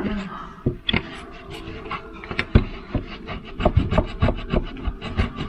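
A vinegar-soaked paper towel rubbing and scrubbing over a refrigerator surface, with many irregular small knocks and taps.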